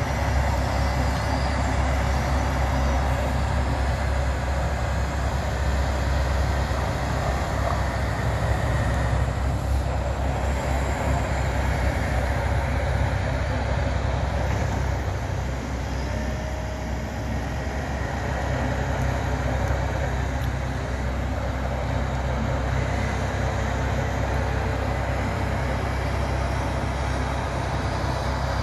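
Asphalt cold-milling machine chewing up the road surface, a steady heavy diesel machinery drone mixed with the engines of the trucks and other road-work vehicles working with it.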